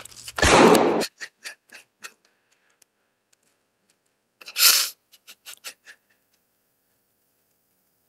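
A gunshot about half a second in, trailed by a fading, echoing rattle for about a second. About four seconds later comes a second sharp burst with a similar fading echo.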